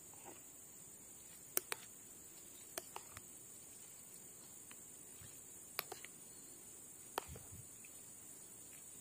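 A metal spoon clinking against a ceramic bowl of noodles, several light sharp taps, mostly in quick pairs, over a steady high-pitched hiss.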